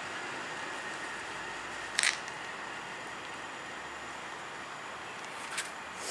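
Steady, even rumble of a passenger train running away through the station, with a sharp click about two seconds in and a smaller one near the end.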